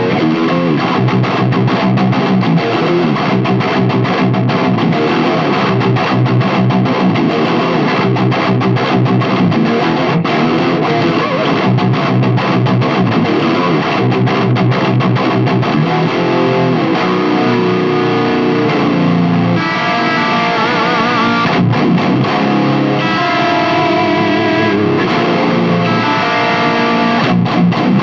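Fernandes seven-string electric guitar played through heavy distortion: fast, dense riffing, then about two-thirds of the way in, held notes with wavering vibrato.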